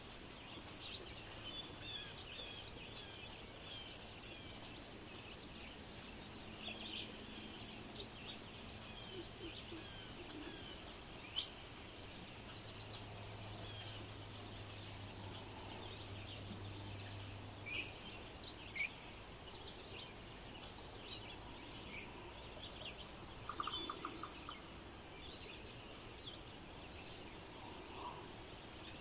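Outdoor ambience of many small birds chirping over a steady, fast, high insect trill.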